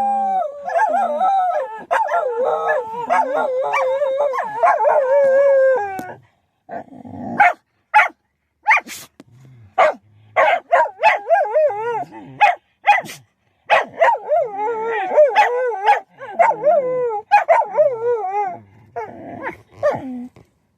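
Shetland sheepdog howling in long wavering tones for about six seconds. Then comes a run of a dozen or so short, sharp sneezes and yips, which the title puts down to the howling. After that the dog howls again in shorter broken stretches.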